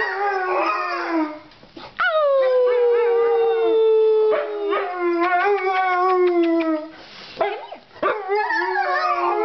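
A Siberian husky and an Alaskan malamute howling together in long, wavering howls that often overlap. There is a short break about a second and a half in, and another around seven seconds.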